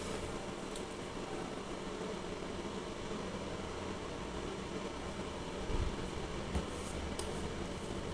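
Chulux single-serve coffee maker running a cleaning cycle with vinegar water to clear its clogged water line, giving a steady low hum. Two brief low thumps come about six seconds in.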